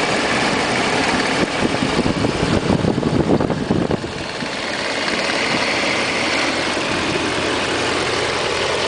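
Mercedes SL55 AMG's supercharged 5.4-litre V8 idling, heard up close at the accessory belt and pulleys. A louder, rougher stretch comes in about a second and a half in and drops back just before the middle, and the engine runs steadily after that.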